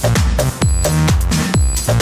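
Electronic dance music with a steady kick drum beating about twice a second under sustained synth tones.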